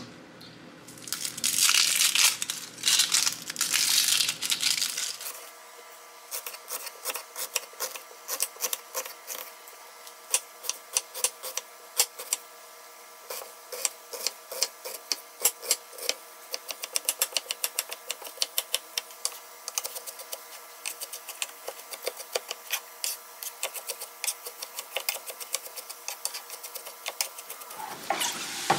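A kitchen knife chopping an onion on a wooden cutting board: a long series of sharp knocks, a few a second, coming faster in the second half. In the first few seconds there is a louder rustling and crinkling.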